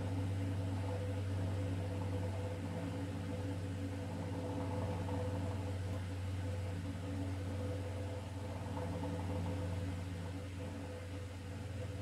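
Electric stand fan's motor humming steadily at a low pitch.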